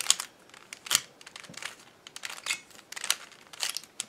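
Plastic 3x3 speed cube being turned by hand: a series of quick clacking layer turns, about two a second, as a last-layer corner-permutation algorithm is executed.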